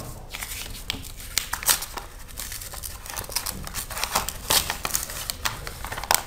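Paper postal envelope being torn open by hand: a stream of short crackling rustles and rips as the paper is pinched, crinkled and torn.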